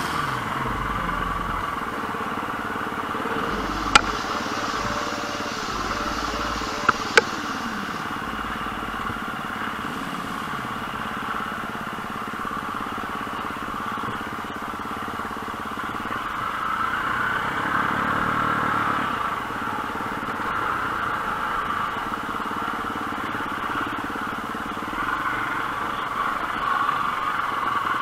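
Enduro motorcycle engine running while riding off-road, the engine note swelling and easing, with a few sharp knocks about four and seven seconds in.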